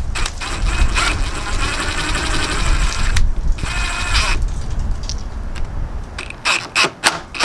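Power drill with a hex bit tightening the bolt of a bar-end mirror into a scooter handlebar: a run of rapid ratcheting clicks lasting about three seconds, then a shorter run. A few separate sharp clicks follow near the end.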